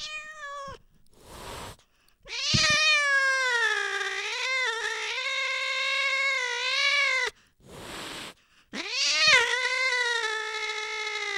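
A cat yowling: long, drawn-out, wavering cries, one of about five seconds and another of about three, each preceded by a short one or a pause. Short breathy hisses come between the cries.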